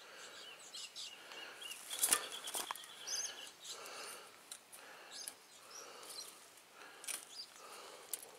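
Barbed wire being wrapped and tied off by hand on a steel star picket: scattered clicks and scrapes of wire and pliers against the post, the sharpest about two seconds in. Birds chirp in the background.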